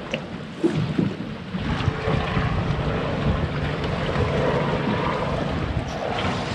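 Wind buffeting the microphone, with water moving along a boat's hull; the noise grows louder and steadier about a second and a half in, with a faint hum under it.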